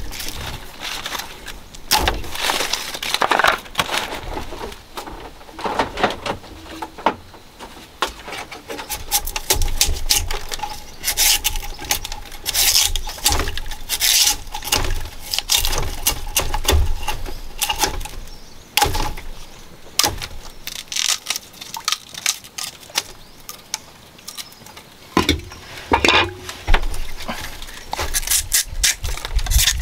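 Fresh bamboo shoots being peeled, their papery husk sheaths torn and stripped off over a woven bamboo tray: repeated crackling tears, snaps and rustles coming in clusters.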